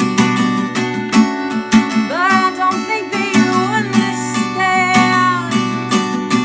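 Acoustic guitar strummed in a steady rhythm, with a woman singing over it from about two seconds in until past the middle.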